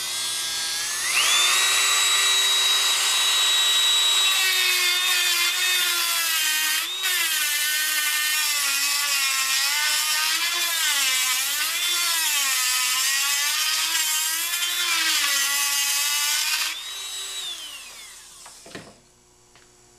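Dremel rotary tool spinning up to a steady high whine, then grinding off a soldered mounting tab of a filter capacitor, its pitch dipping and wavering as it is pressed into the metal. About seventeen seconds in it runs free again briefly and winds down.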